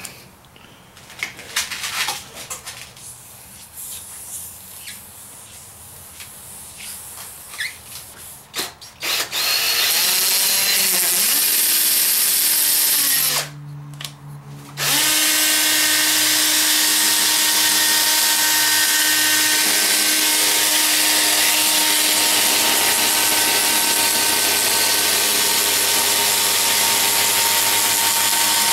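Electric drill spinning a foam compounding pad loaded with rubbing compound against a plastic headlight lens. First come scattered clicks and handling noises. The drill starts about nine seconds in, its pitch dipping briefly as the pad is pressed on, stops for a second or so, then runs steadily at a constant whine.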